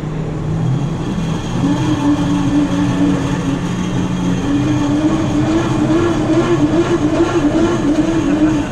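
Crank-driven generator exhibit being turned hard to make watts: a whirring, rattling mechanical whine that comes in a second or so in, rises in pitch about halfway through as it is cranked faster, and cuts off abruptly at the end.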